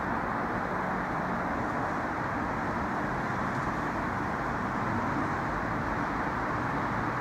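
Steady background hum of distant road traffic.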